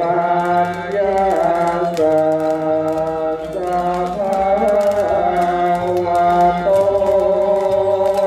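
Slow, chant-like music: long held notes that step to a new pitch every second or two over a steady low drone, with faint scattered clicks.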